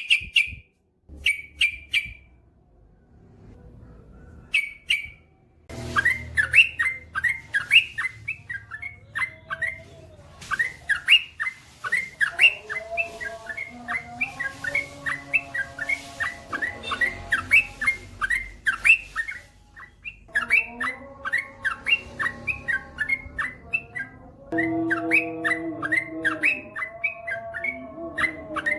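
Yellow-vented bulbul (trucukan) singing: a few short calls, a brief lull, then from about six seconds a long, fast run of short chirping notes, several a second, under which fainter lower sustained tones come in.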